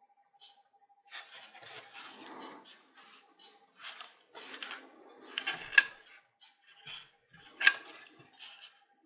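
Gloved hands handling and turning over an ASUS ROG Strix RTX 3060 graphics card: cloth rubbing and rustling on the card, with a few sharp clicks and knocks of its metal and plastic shroud and backplate, the two loudest a little past halfway and about three-quarters in.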